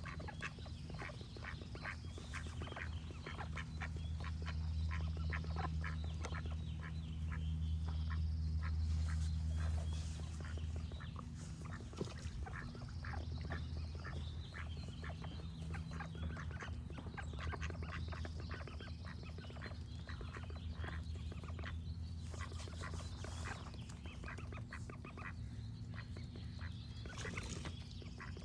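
Ducks quacking in quick, continuous series, with short high bird notes recurring every few seconds and a steady low rumble underneath.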